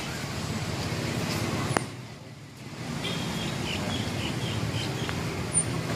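Outdoor ambience: a steady low rumble like distant road traffic, with a few short bird chirps and a sharp click a little under two seconds in.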